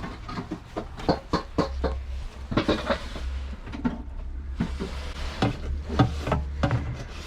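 Rummaging through papers and small objects in a car's glove box: irregular rustling, crinkling and sharp little clicks and knocks, over a low steady rumble.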